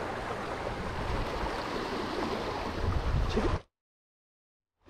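Small surf waves washing and splashing against jetty rocks, a steady rush with a low rumble. It cuts off suddenly to dead silence about three and a half seconds in.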